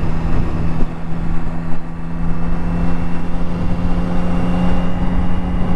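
Yamaha XSR900 motorcycle's inline three-cylinder engine running steadily at a constant cruising speed, its pitch holding level, with wind rumble on the rider's microphone.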